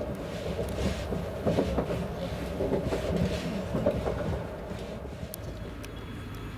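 Train wheels rumbling and clacking over the rails of a moving passenger train, with irregular knocks; about four and a half seconds in the rumble gives way to a quieter steady hum.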